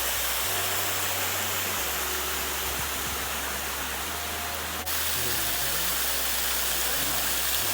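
Waterfall rushing: a steady, even roar of falling water, with a brief break about five seconds in.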